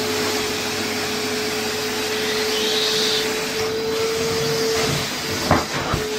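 Carpet extraction machine's vacuum suction rushing steadily through the cleaning wand as it is worked over carpet, with a steady hum under the noise. A couple of short knocks near the end.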